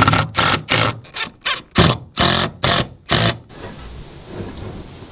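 DeWalt 20V XR cordless drill driving screws through a shutter hinge into wood in a quick run of short trigger bursts, about four a second, which stop a little over three seconds in. A faint steady hiss follows.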